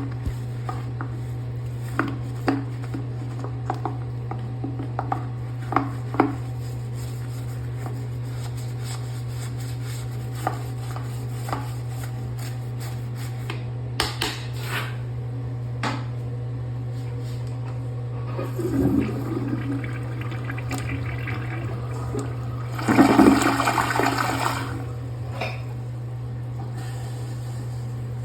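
Toilet being cleaned: scattered short scrapes and knocks of scrubbing, then water rushing in the bowl in two surges, the second, near the end, the loudest. A steady low hum runs underneath.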